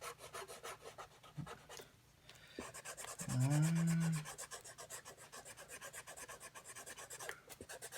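Sharpie permanent marker scribbling over a surface in rapid back-and-forth strokes, several a second, with the marker running dry. A short hummed 'mm' about three seconds in.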